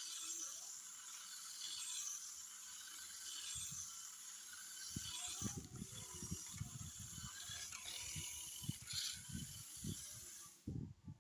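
Toy remote-control off-road car's small electric motor and gears whirring steadily, with irregular low thumps from about halfway in.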